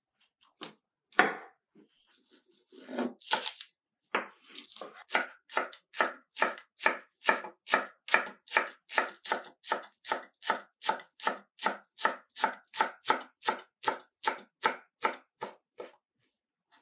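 Knife chopping on a cutting board in a steady rhythm of about two and a half strokes a second, preceded by a single knock and a short scraping.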